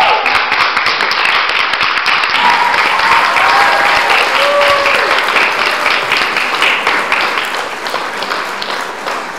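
Audience applauding, with a few voices calling out in the middle; the clapping thins out over the last couple of seconds.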